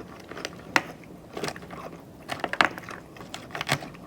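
Close-up chewing of a crunchy salad with crispy chicken, with irregular clusters of crisp crunches between quieter chewing.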